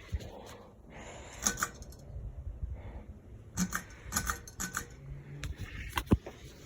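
Handling noise as the camera is moved to a new position: light clicks and short rattles, with one sharp knock about six seconds in, over a low rumble.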